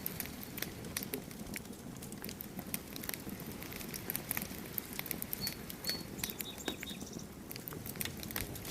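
Wood campfire crackling and popping, with many sharp snaps over a low steady rush of flames. A bird chirps briefly a few times just past the middle.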